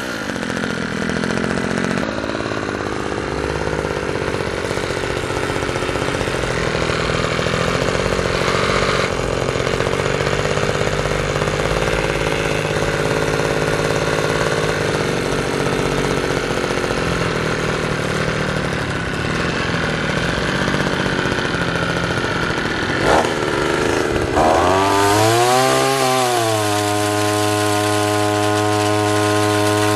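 Two-stroke gas pole saw engine running, uneven at first. Near the end it revs up and falls back, then settles into a steady idle.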